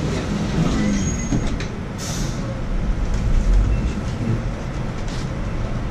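Low, steady rumble of a large passing vehicle, with a short hiss about two seconds in.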